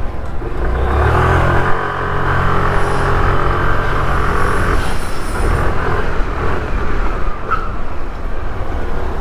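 Suzuki Access 125 scooter's single-cylinder four-stroke engine running as the scooter is ridden off, louder from about a second in and easing off after about five seconds. It has a heavy sound, with the thin ticking tappet noise it had before the service gone now that the loose tappets have been tightened.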